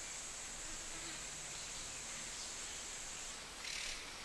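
Faint steady background hiss with a thin high-pitched band that stops a little over three seconds in, then a soft brief noise near the end.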